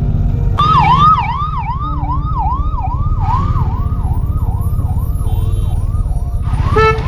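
Electronic vehicle siren sounding a fast repeating falling yelp, about two to three sweeps a second, starting about half a second in. Under it the motorcycle's engine runs low and steady.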